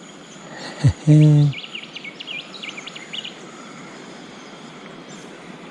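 A short hummed vocal sound about a second in, followed by a bird's rapid high chirps for a couple of seconds, over a steady background of flowing river water.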